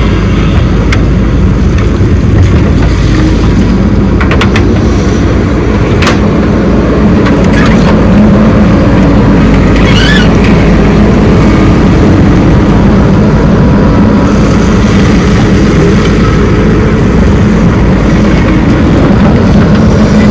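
Heavy diesel machinery running steadily: a backhoe loader working alongside a tractor, with a few short metal knocks and a brief squeal about halfway through.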